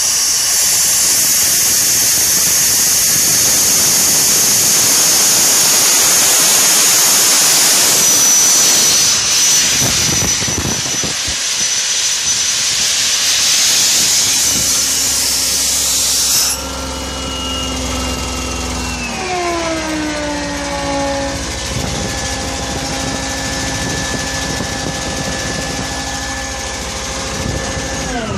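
Engine-driven machine running with a loud airy hiss. About sixteen seconds in the hiss cuts off, leaving the machine's steady hum, which falls in pitch over a couple of seconds as it slows to a lower speed and holds there. Near the end it starts to fall again.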